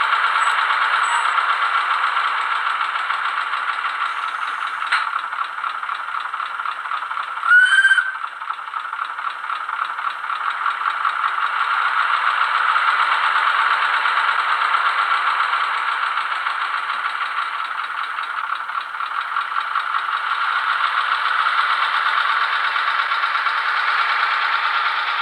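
ZIMO sound decoder in a Roco H0 model of an NS series 200/300 shunting diesel, playing the diesel engine running steadily through the model's small loudspeaker, thin with no bass. A click comes about five seconds in, and a short, loud rising tone about seven and a half seconds in.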